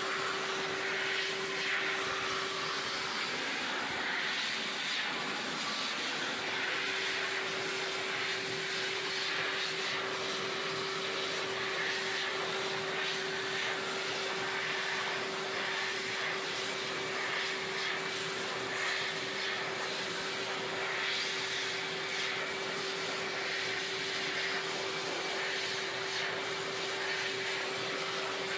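A Hyla water-filter vacuum cleaner runs steadily while its hose nozzle is drawn over the keys of a digital piano. A constant motor whine sits over a rush of sucked air.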